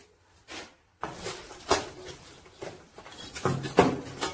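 Metal spatula scraping and tapping on a metal pot lid as live charcoal embers are pushed onto it for dum cooking, with the coals clinking; a string of short, sharp scrapes and clinks, denser near the end.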